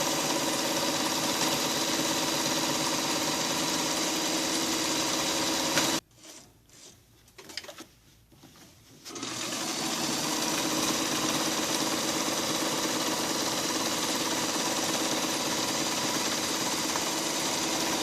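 White Model 167 sewing machine running steadily while sewing a straight stitch. It stops suddenly about six seconds in, followed by a few seconds of quiet with a few faint small sounds. It then starts again about three seconds later and runs steadily.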